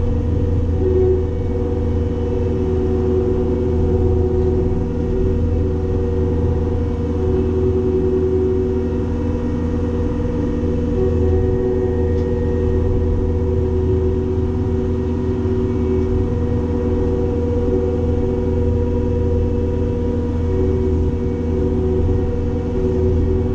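Cat 262D skid steer's diesel engine running steadily under load while driving a Loflin open-front hydraulic brush cutter. It gives a strong low drone with a higher whine that drops out and comes back every few seconds.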